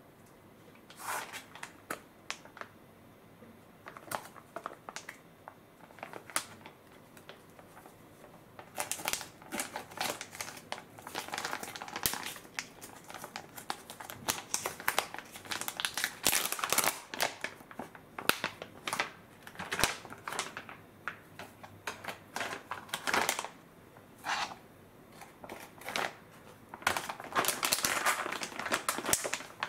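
Plastic microwave steam-cooking pouch crinkling and crackling as it is handled. A few separate crackles at first, then dense crinkling from about nine seconds in.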